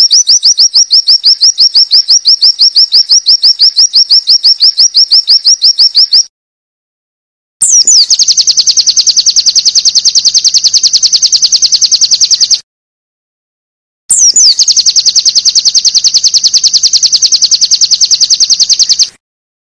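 White-eye (pleci) song: three long runs of rapid, evenly repeated high 'wit wit' notes, each lasting about five seconds and opening with a quick downward swoop, with short silent gaps between them.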